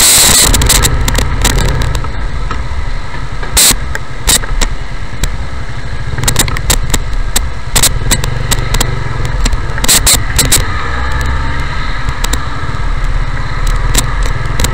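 Motorcycle engine running at low speed, heard from a helmet camera, with frequent short sharp crackles on the microphone. A loud wind rush dies away within the first second.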